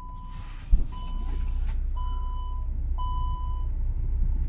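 2020 Jeep Cherokee Limited's electronic warning chime beeping four times, about once a second, as the liftgate is released with the trunk release button; a thump comes just under a second in, and a steady low rumble sets in right after it.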